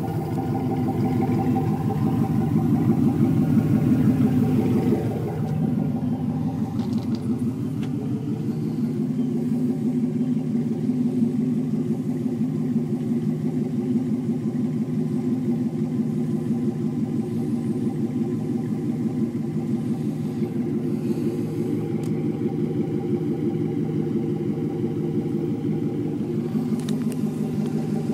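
Exhaust of a 1996 Chevrolet Camaro Z28's LT1 V8 idling steadily through a muffler delete, the catalytic converters kept and straight pipes run to the chrome tips. A deep, even rumble that is a little louder for a few seconds near the start.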